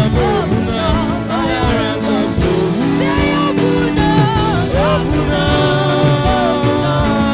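Worship music: a voice singing sliding, bending lines over held instrumental chords.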